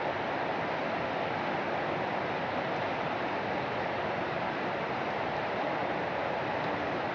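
Steady rain falling, an even hiss that holds level without breaks.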